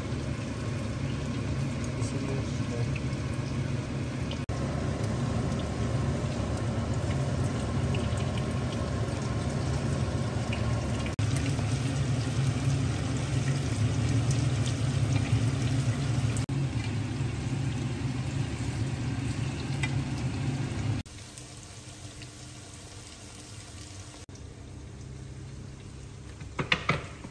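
Cubes of tofu sizzling as they fry in oil in a nonstick frying pan, over a low steady hum. The sizzle drops away suddenly about two-thirds of the way through, leaving a quieter background, and a few sharp knocks come near the end.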